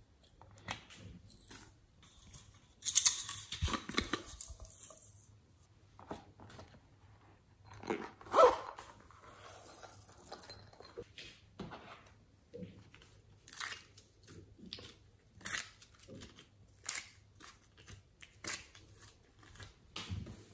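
Hands working slime and plastic toys and containers: short crackling and tapping sounds, a dense crackling stretch about three to five seconds in, a loud snap about eight seconds in, then separate sharp clicks about once a second.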